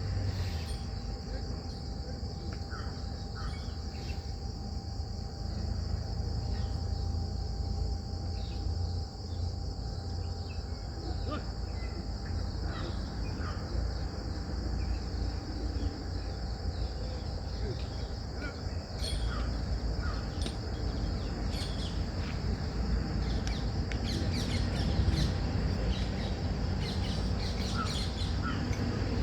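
Steady high-pitched insect chorus, with scattered short chirps and clicks over a low rumble.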